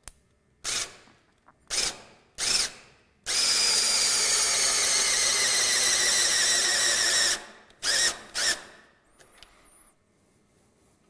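Cordless drill-driver running in reverse to screw a left-hand-threaded connector into the end of an aluminium extrusion profile. It gives three short blips, then one long run of about four seconds, struggling under the load, then two short blips.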